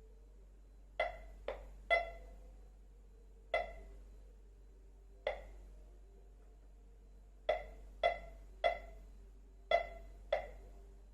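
About ten sharp knocks of hard objects at irregular intervals, some in quick pairs, each ringing briefly with a hollow pitch.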